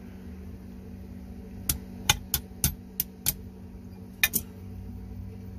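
Sharp metal clicks and taps as mechanic's pliers work a snap ring onto a starter motor's armature shaft: a run of six clicks spaced about a third of a second apart, then a quick double click.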